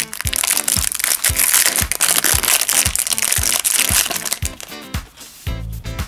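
Clear plastic wrapper crinkling and crackling as it is pulled off a small plastic toy by hand, dying away about four and a half seconds in, over background music with a steady beat.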